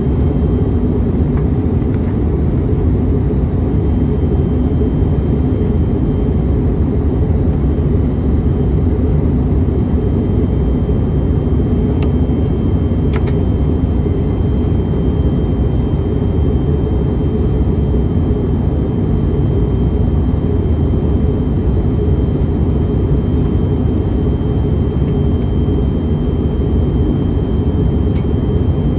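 Airbus A321neo cabin noise in flight, heard from a window seat over the wing: a steady low rumble of engines and airflow. A thin high whine holds steady from about halfway through, and there are a few faint clicks.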